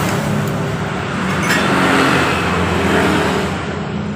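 Road traffic going by: a steady rush of engines and tyres that swells about two seconds in, with a light click about a second and a half in.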